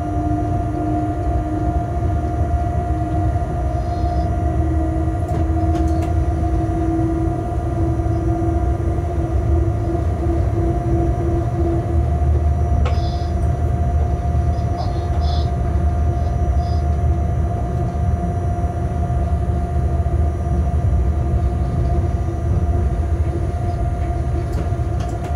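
A locomotive running light along the track: a steady rumble of wheels on rails under a steady two-note hum, the lower note rising slightly over the first several seconds. A few faint ticks.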